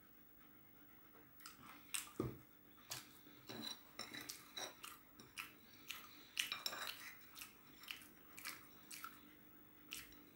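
Big Bob peanuts being chewed, with a spoon clicking against the dish: faint, irregular crunches and clicks.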